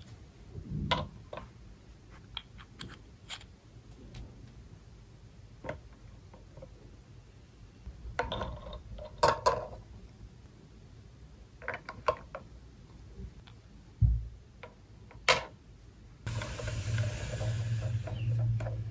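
Small hard plastic toy pieces clicking and clacking as they are handled and set into a plastic toy sink playset. Light scattered clicks run throughout, with a cluster of sharper clacks around the middle and a dull thump a few seconds later. For the last few seconds a steady louder hiss with a low hum comes in.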